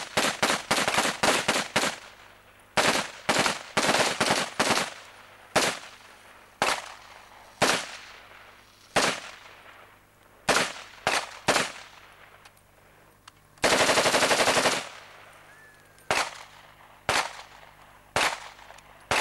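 Several military rifles firing at targets, each shot a sharp crack with a short echo. The shots come in quick, overlapping succession at first, then spaced about a second or more apart. Roughly two-thirds of the way through comes one burst of automatic fire lasting about a second.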